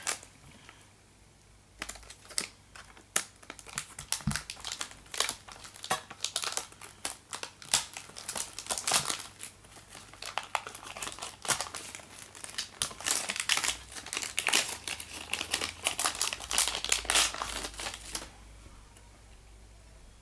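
Metallic anti-static bag crinkling and rustling in the hands as it is opened and the solid state drive is taken out, a dense irregular crackle that starts about two seconds in and stops a couple of seconds before the end.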